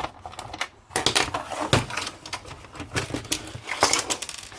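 Hard plastic parts of an old landline telephone clicking and clattering as it is taken apart by hand. The dense run of sharp clicks starts about a second in.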